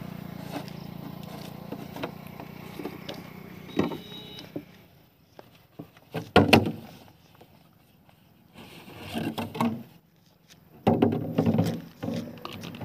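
A thin plastic jar is handled and tipped out, giving knocks and crackling rustles of plastic. The loudest burst comes about six seconds in, with more near the end as the jar is set down on the road. A steady engine hum runs under the first four seconds or so, then stops.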